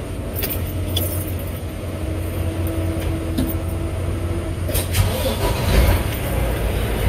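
Semi truck's diesel engine running steadily at low speed, with a brief noise burst about five seconds in, after which the engine gets a little louder.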